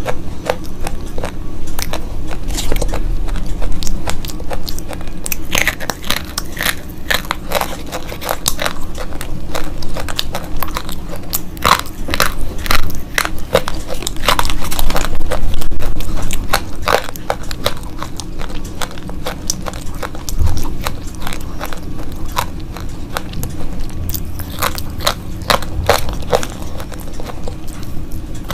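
Slate pencils being bitten and chewed: crisp crunches and snaps in quick, irregular succession, with a denser run around the middle.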